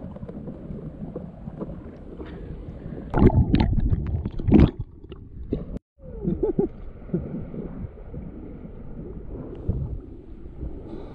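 Sea water sloshing and splashing at the surface close to the microphone, with a run of louder splashes about three to five seconds in. The sound drops out for a moment just before six seconds, then the lapping goes on.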